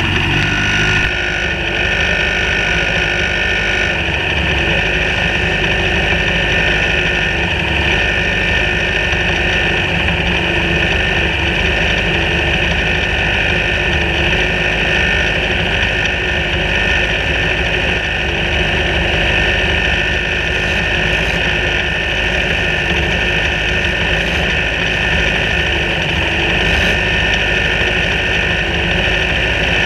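Sbarro Spyder racing car's engine idling steadily in the pit-lane queue.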